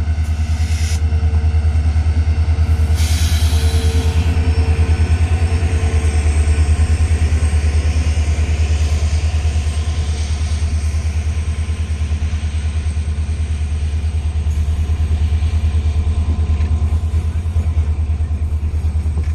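WDP4D diesel-electric locomotive's engine running under load as the train rumbles past, a steady deep pulsing rumble, with a faint hum fading out about seven seconds in.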